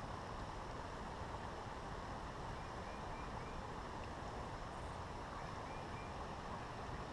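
Creek water flowing steadily, an even rushing noise, with a few faint high chirps in short runs.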